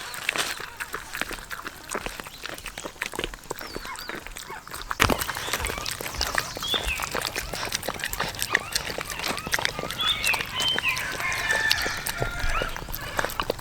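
Dogs eating from their bowls: rapid clicking and chewing throughout. From about six seconds in, short high chirping cries from animals are mixed in.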